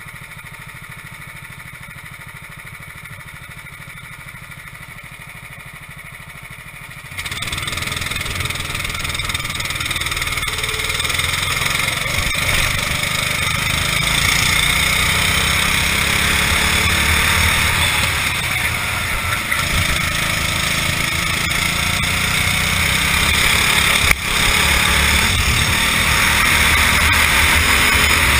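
Racing kart engine heard from the kart's onboard camera. It runs low and quiet at first, then about seven seconds in the throttle opens and it gets suddenly much louder. It is then held at high revs through the corners, with short lifts and a brief sharp dip near the end.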